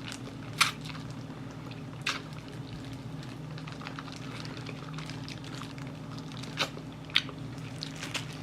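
Close-up eating of Korean fried chicken: quiet chewing with a few sharp crunches or clicks, about four in all, over a steady low hum.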